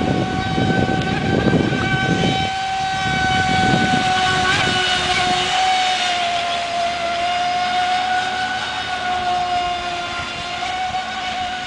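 9XL brushless electric motor of an Arowana 31.5-inch RC speedboat on a 14.8 V pack, whining steadily at high speed. The pitch sags slightly about six seconds in and then climbs back. A rough low rushing noise sits under it for the first couple of seconds.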